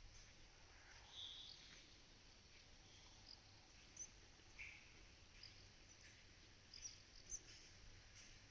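Faint pasture ambience: scattered brief, soft chirps and calls of small birds over a quiet steady background.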